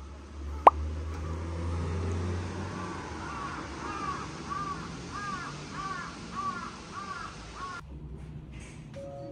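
A crow cawing in a run of short calls, about two a second, over a steady outdoor hiss. One sharp click about a second in is the loudest sound.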